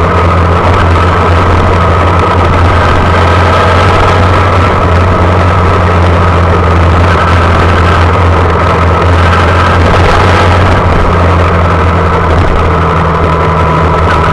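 Honda Monkey's small single-cylinder four-stroke engine running at a steady, unchanging pitch, heard close from the handlebars.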